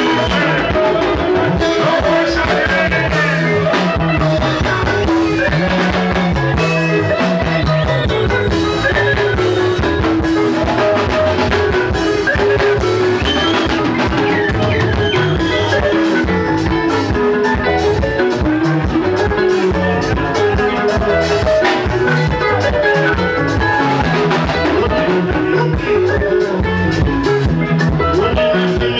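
Live Zimbabwean rumba band playing: electric lead and rhythm guitars over bass guitar and a drum-kit beat, loud and continuous.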